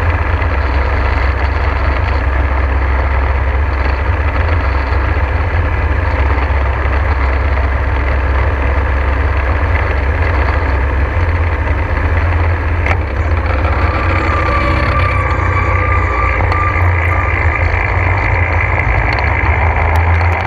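Gyrocopter engine running steadily with a deep drone. About thirteen seconds in the note shifts and a thin, steady higher whine joins it.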